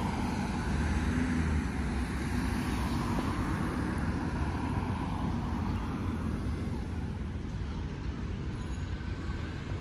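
Road traffic on a wide multi-lane city street: a steady rush of passing car engines and tyres.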